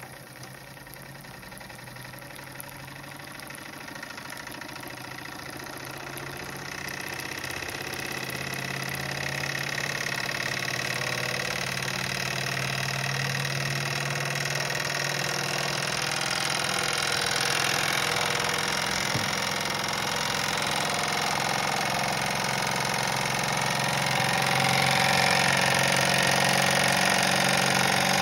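Toy live steam engine of a 1937 Doll No. 348 steam plant, a single-cylinder horizontal engine, running steadily on steam with a hiss, growing louder through the stretch.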